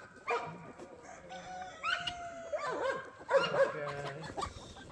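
Dog whining and yipping in a series of high, wavering calls, one of them held for about a second near the middle.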